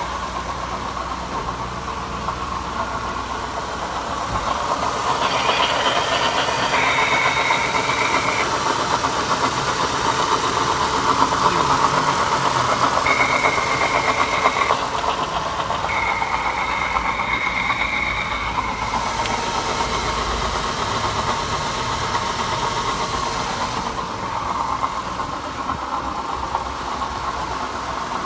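Mitsubishi Savrin 2.4 engine running, the abnormal engine noise under diagnosis, louder through the middle. A thin high tone comes and goes three times.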